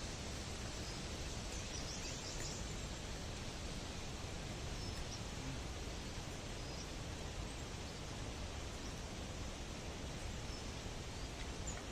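Steady hiss of rain falling, an even wash of noise that neither rises nor falls.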